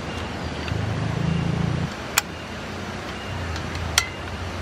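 Portable butane camping stove being handled: two sharp clicks as its case is opened and a gas canister is fitted, over a low steady rumble.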